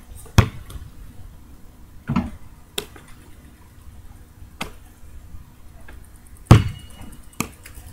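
A basketball thudding several times as it is bounced and shot at a hoop, with sharp separate thumps and the loudest one about six and a half seconds in.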